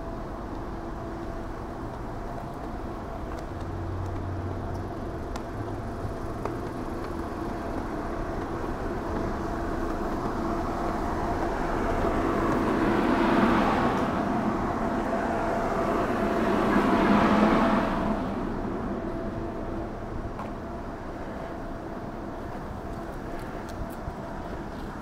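Cars driving slowly past on a street, over a steady street hum. The sound swells twice as vehicles pass close by, about halfway through, then fades back.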